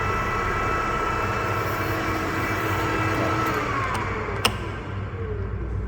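OOYA RE-1225H radial arm drill's arm elevation motor and drive running, moving the arm along the column with a steady whine. About four seconds in the whine falls away as the drive stops, followed by one sharp click.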